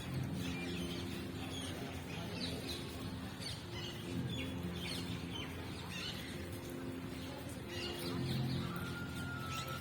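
Many birds chirping and calling in quick short notes throughout, over a steady low hum. A steady higher tone comes in near the end.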